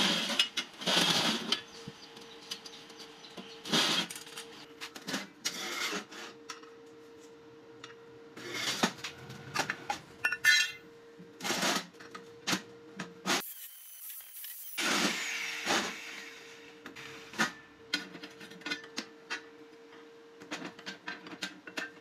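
Steel angle-iron pieces knocked and scraped against each other and the steel workbench as they are handled and fitted: irregular metallic clanks and clicks over a steady faint hum. The sound cuts out for a moment about two-thirds of the way through.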